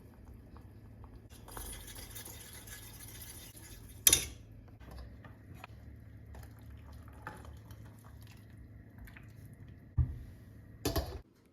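Kitchen handling sounds: a soft rushing noise for a couple of seconds, a sharp clink of dishes about four seconds in, scattered small clicks, then a thump and another clatter near the end.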